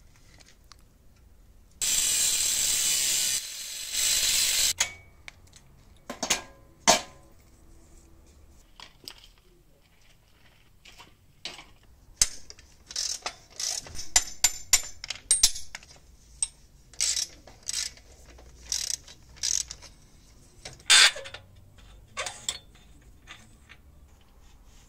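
Ratchet wrench clicking in quick bursts while undoing bolts on a rusty steel motorcycle frame, with scattered sharp metal knocks. About two seconds in, a loud steady hiss runs for about three seconds.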